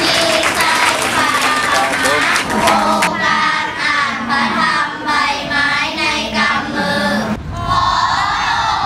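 A group of children singing together in unison. About seven seconds in it cuts abruptly to a noisier crowd sound.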